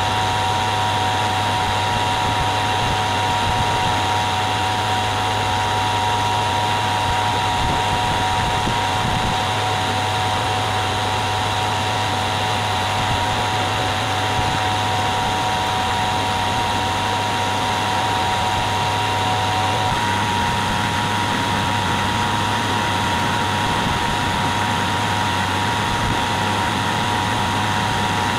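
Hafco AL336 metal lathe running with its three-jaw chuck spinning: a steady machine whine. About twenty seconds in, the tone changes slightly.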